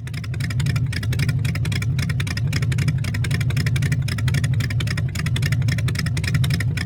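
Demolition derby vehicle engines running with open exhaust, a rapid rough pulsing over a steady low drone.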